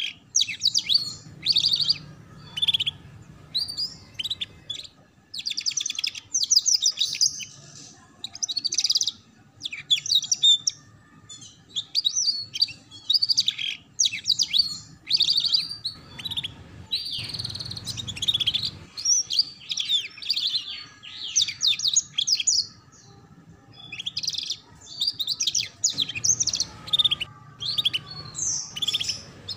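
Canary singing a fast, high-pitched twittering song in the ngeriwik style: quick trilled phrases, one after another, broken by short pauses.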